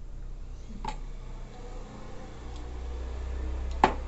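Close-up eating sounds: chewing with a few soft clicks, a crisp crack about a second in and a loud sharp crunch near the end.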